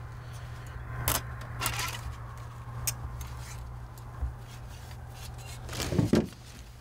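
Light metallic clicks and rattling of a steel body-grip trap being handled, with a few sharp clicks about one, two and three seconds in, over a steady low hum.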